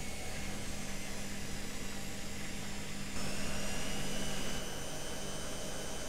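Candy GrandÓ GO145 front-loading washing machine running, a steady motor hum and whine. About three seconds in it grows louder, with a slightly rising whine, then settles back about a second and a half later.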